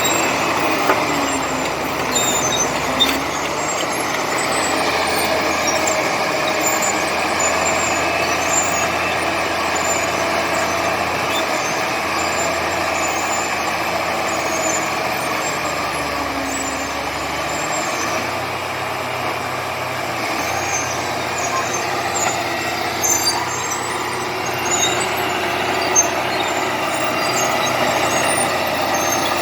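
Komatsu D70LE crawler bulldozer's diesel engine working under load while pushing clay, its pitch slowly rising and falling. Scattered high ticks and a few short knocks run through it.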